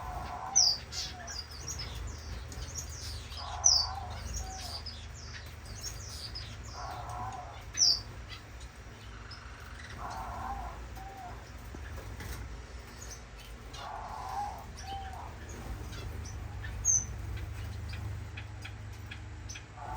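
Caged owl finches chirping and calling: short high chirps and light clicks throughout, with a longer mid-pitched call repeated every three to four seconds. A steady low hum runs underneath.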